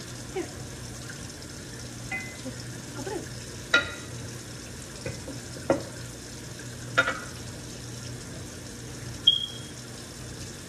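Kitchen utensils and glassware knocking and clinking: a wooden spoon working in a glass bowl and a small glass set down, several short clinks a second or more apart, some ringing briefly, over a steady low hum.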